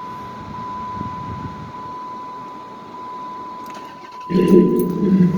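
A steady high electronic warning tone from the car sounds over a low even hum, then about four seconds in the Dodge Charger's 5.7 Hemi V8 starts and runs loudly and steadily on its newly fitted serpentine belt and tensioner pulley.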